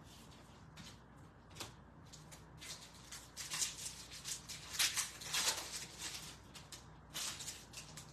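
Trading cards being handled and flipped through by hand: a faint, irregular run of light rustles, clicks and crinkles, busiest from about three to six seconds in.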